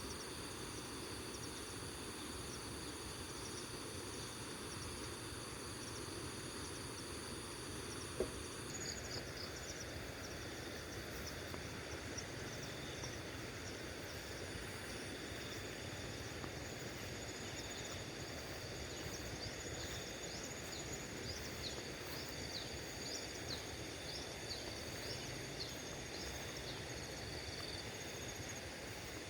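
Crickets and other insects trilling steadily in several high, unbroken tones over a constant hush of flowing river water. A single sharp click comes about eight seconds in, and the sound mix changes abruptly just after it. From there on, quick bird chirps keep breaking in, thickest in the second half.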